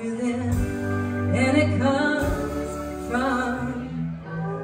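Live band with a woman singing over acoustic and electric guitars, keyboard and drums, with long held notes and a steady bass.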